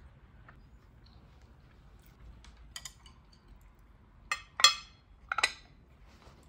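Ceramic bowl and plate clinking against each other as the bowl is lifted and set back down: three sharp clinks about halfway through, the middle one the loudest, after a few lighter clicks of wooden chopsticks being picked up off the plate.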